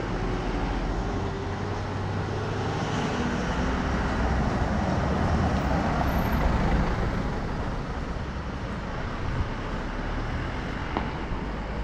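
Street traffic noise: a motor vehicle passing, swelling to its loudest about six seconds in and then fading, over a steady low rumble.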